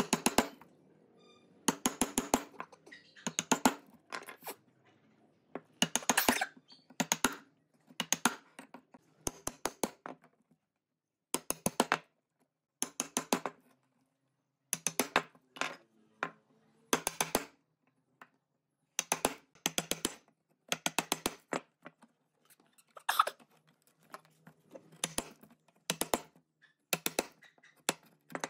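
Narrow wood chisel being struck with a mallet, chopping out a mortise in a wooden leg: clusters of three to six quick, sharp knocks, separated by pauses of about a second.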